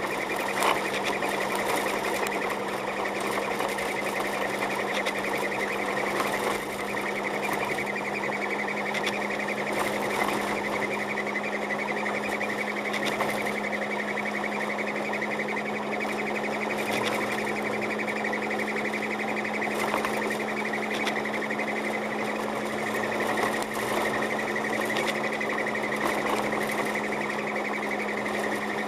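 Car cabin noise while driving at steady speed on a snow-covered road: an even engine drone that holds one pitch, under tyre and road noise, with scattered faint clicks.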